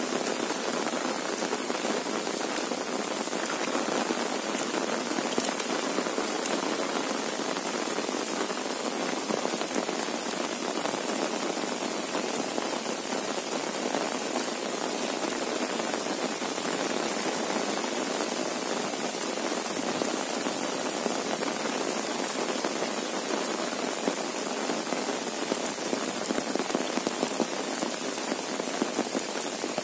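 Heavy monsoon rain falling steadily, a dense, even patter of drops with no let-up.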